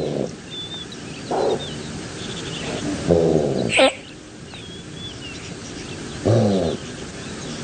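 Gazelle bleating: about five short, nasal calls with falling pitch, spaced a second or more apart, one of them a sharper, higher squeal about four seconds in. Faint high chirps sound between the calls.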